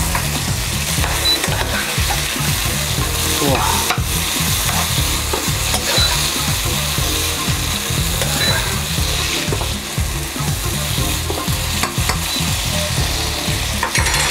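Strips of beef sizzling hard in a hot non-stick wok, with a steady hiss of frying. A utensil stirs and scrapes through the meat, adding frequent short clacks and scrapes.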